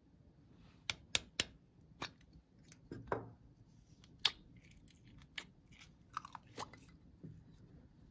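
Slime being stretched and squeezed by hand, giving sharp, irregular clicks and pops, with a few short squelches about six seconds in.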